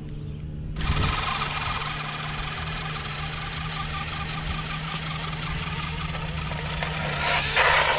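Red Ducati RC motorcycle's electric motor and drivetrain whirring as it drives on the concrete skatepark bowl, starting up about a second in and running steadily, with a louder surge near the end.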